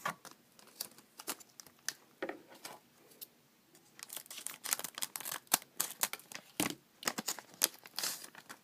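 Scissors cutting open a foil Pokémon booster pack, with the wrapper crinkling as it is handled: a run of sharp snips and crackles that grows busier about halfway through.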